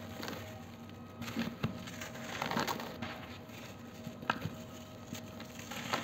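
Hands crushing and crumbling a dry, grainy lump of packed powder, with soft crunches and loose powder and crumbs pattering down. The longest crunch comes a little before halfway, followed by a few sharp crackles.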